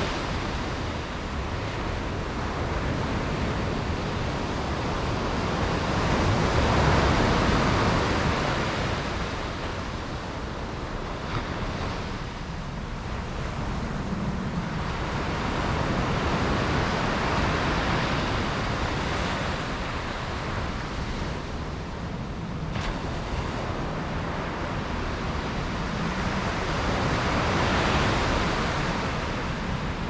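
Sea surf breaking and washing on the shore. It swells louder three times, roughly ten seconds apart, and eases between.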